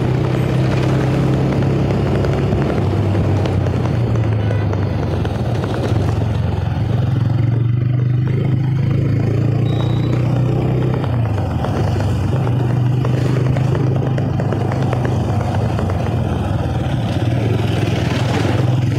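TVS Raider 125 motorcycle's single-cylinder engine running at a steady riding pace, with road and wind noise. The engine note dips briefly about eleven seconds in, then picks up again.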